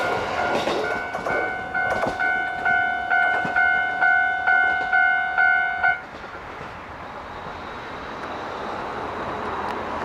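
A Japanese railway level-crossing warning bell rings in an even ding-ding rhythm, about two strikes a second, then cuts off suddenly about six seconds in once the train has cleared. The passing electric train's running noise dies away at the start, and a quieter steady hiss follows the bell.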